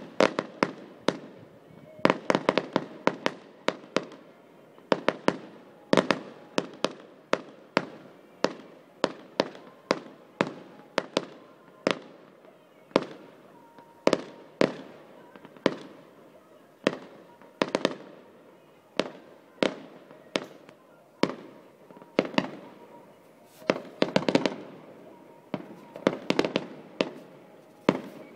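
Fireworks display: a steady run of sharp bangs, often several a second, with quick crackling clusters and echoing tails after the louder shots.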